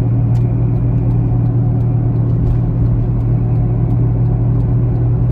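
A car cruising at steady speed, heard from inside the cabin: a continuous low drone of tyre and engine noise.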